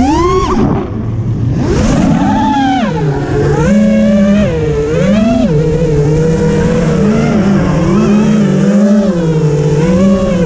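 A motor running continuously, its pitch rising and falling every second or two.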